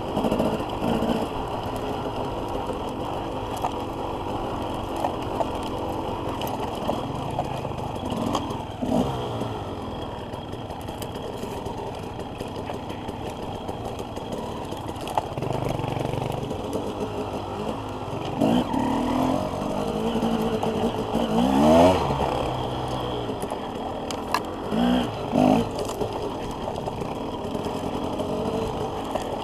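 Dirt bike engine heard from on the bike, running steadily and revving up and down with the throttle on a trail ride, the strongest rev about 22 seconds in, with some clatter from the bike.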